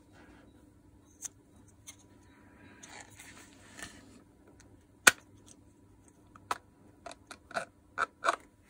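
Hard plastic and metal parts of a Makita DDF486 cordless drill being handled by hand: scattered light clicks and a little scraping, a single sharp click about five seconds in, and a quick run of clicks near the end.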